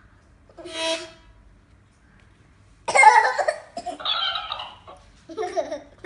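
A short harmonica blast about half a second in, then a toddler's loud laughing shriek about three seconds in. It is followed by higher-pitched, squeaky bursts from a talking toy cat repeating the sounds back.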